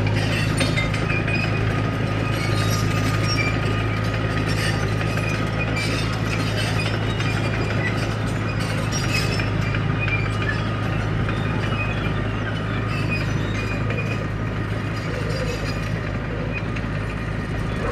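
Komatsu D31P crawler bulldozer's diesel engine running steadily, with frequent metallic clinks and clanks from its steel tracks and undercarriage.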